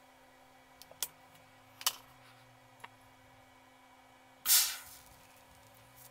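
A few light clicks and knocks of handling, then a single short, loud crackling hiss of an electric welder striking a tack weld on the steel scooter frame, dying away within about half a second; a faint steady hum runs underneath.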